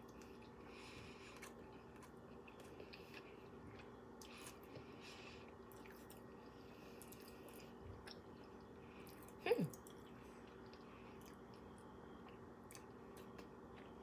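Faint chewing of a soft chocolate-coated caramel snack cake, over a faint steady hum. About halfway through comes one short vocal sound that falls in pitch.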